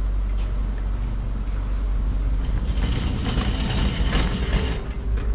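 Loaded drink cart rolling over a concrete floor: a steady low rumble with creaks and rattles. A glass door is pushed open partway through.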